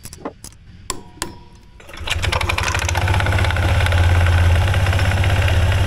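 A few light metallic tool clicks, then about two seconds in the Honda ADV 160's single-cylinder engine starts and idles steadily, its CVT cover off.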